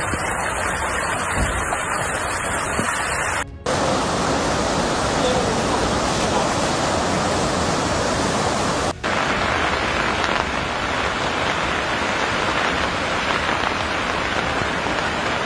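Fast-flowing floodwater rushing through streets and an overflowing stream, a steady loud rush of water broken by two brief abrupt gaps, about three and a half and nine seconds in.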